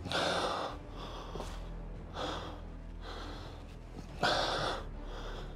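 A person breathing close to the microphone: three audible breaths about two seconds apart, over a faint steady low hum.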